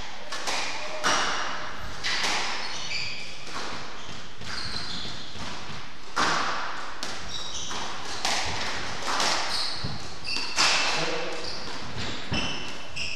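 Squash rally: the ball struck by rackets and smacking against the court walls and floor at irregular intervals, echoing in the hall, with short high squeaks of court shoes on the wooden floor.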